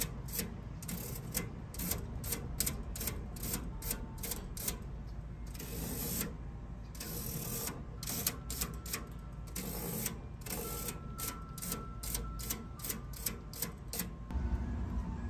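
Fin comb raked through an AC condenser coil's thin metal fins in repeated quick scraping strokes, about three a second, with short pauses. The strokes straighten fins bent by damage to the coil.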